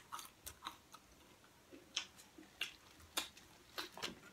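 Chewing a mouthful of crispy fried pig head skin and meat: an irregular scatter of faint crisp crunches and mouth clicks.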